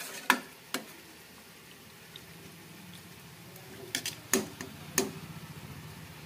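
Steel ladle stirring a watery curry in a steel kadai, knocking sharply against the pan a couple of times near the start and in a quick cluster about four to five seconds in. Underneath, a low steady bubbling sets in from about two seconds as the added water comes to a simmer.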